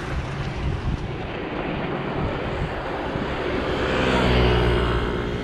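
Motor scooter engine approaching and passing close by, swelling to its loudest about four seconds in and then dropping slightly in pitch as it goes past, over a steady wind rumble on the microphone.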